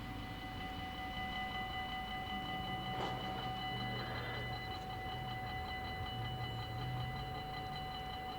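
Dutch level-crossing warning bells ringing: a fast, even ringing with a steady ring tone that holds throughout.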